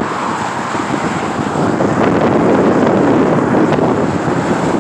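Highway traffic passing close by: the rushing noise of tyres and engines swells about two seconds in as a vehicle goes past, then eases a little near the end, with wind on the microphone.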